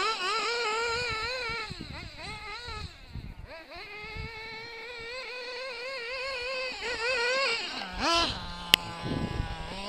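A 1/8-scale RC buggy's small nitro engine screaming at high revs, its pitch wavering as the throttle is worked while the buggy circles. It eases off twice, then drops to a low idle near the end, with a short blip and a sharp click.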